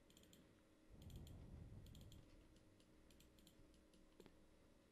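Near silence with a few faint clicks of a computer mouse and keyboard.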